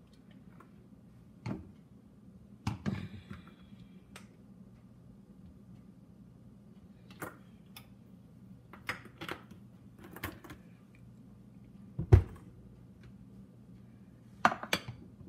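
Scattered light clicks and knocks of a plastic cooking-oil bottle being capped and handled beside a frying pan, with one louder dull thump about twelve seconds in and a cluster of clicks near the end. A low steady hum runs underneath.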